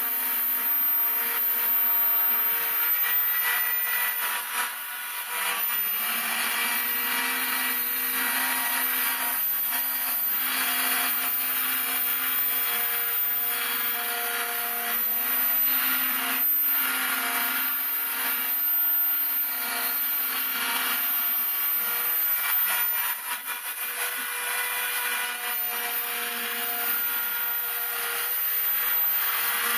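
Home-built CNC router milling wing ribs: a spindle running with a steady high whine over the rasping noise of the cutter in the material, while the stepper motors hum at pitches that step up and down as the axes change speed and direction.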